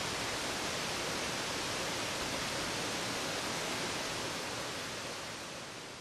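Small garden waterfall splashing over rock, a steady rushing hiss that fades out over the last second or so.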